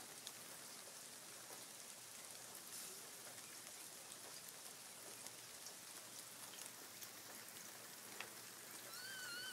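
Steady light rain falling, with scattered ticks of drops hitting surfaces. Near the end a high voice rises briefly, then starts to glide down.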